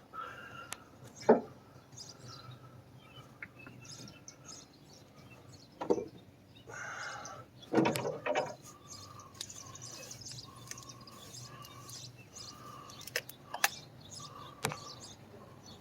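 Small birds chirping repeatedly in the background, with several sharp knocks and a short clatter of handled objects, the loudest knock about a second in and a cluster near the middle.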